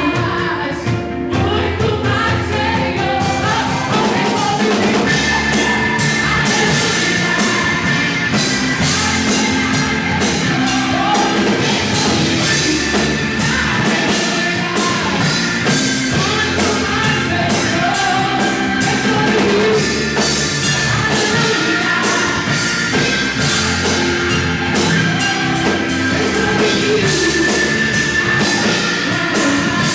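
Gospel worship music played live by a band with drum kit, with singing over it; it builds over the first few seconds and then carries on at full level with a steady drum beat.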